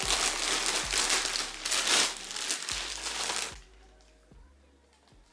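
Thin plastic packaging bag crinkling and rustling as it is handled and pulled off a new stroller part, stopping about three and a half seconds in.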